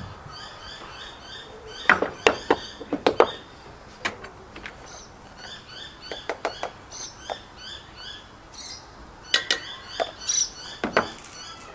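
Small birds chirping in a steady, repeating pattern in the background, with scattered sharp clicks and taps from a spoon and a soy sauce bottle against a camp oven and a plastic sugar container as seasoning is added to a curry.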